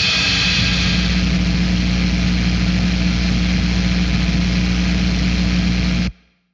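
A loud, steady low drone with a strong hum, cut off suddenly about six seconds in.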